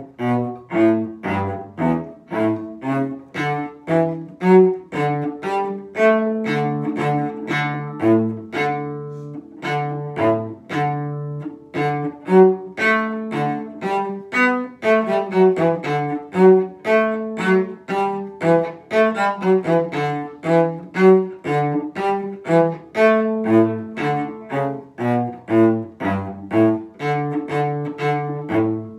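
Solo cello bowed in a lively tune of short, separate notes with a few longer held ones.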